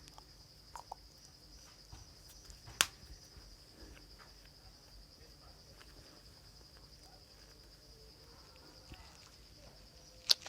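An insect trilling steadily at a high pitch with a fine, even pulse. A few sharp clicks of handling sound over it, the loudest about three seconds in and just before the end.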